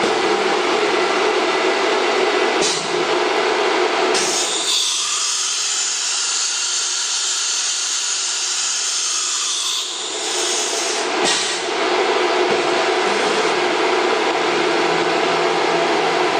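CNC router machinery running with a loud, steady mechanical noise. From about four seconds in, the low rumble drops away and a bright high hiss takes over for about six seconds, then the fuller noise returns.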